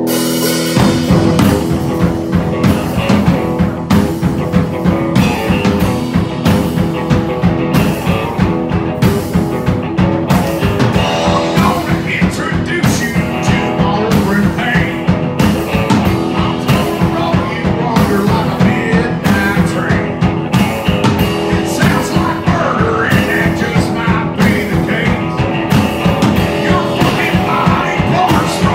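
Live rock duo playing: electric guitar and a drum kit in a driving beat, the drums coming in right at the start, with a man singing in places.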